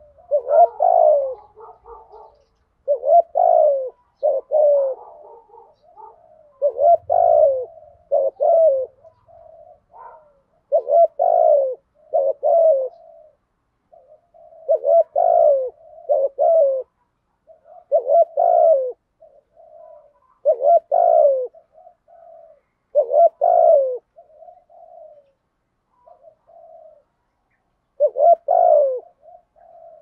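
Spotted dove cooing: a loud, repeated song of low two- and three-note coo phrases, one phrase every two to three seconds with short pauses between, and a longer pause a little past the middle.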